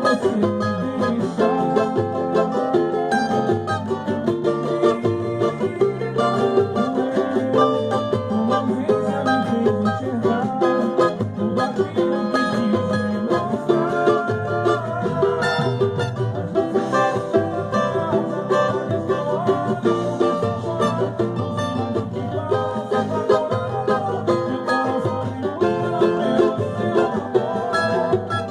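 Plucked string instruments playing a batuque rhythm, a steady run of picked notes over a bass line.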